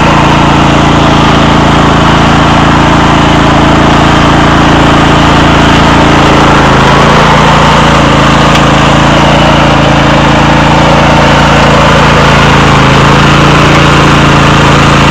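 Riding lawn mower's engine running loud and steady.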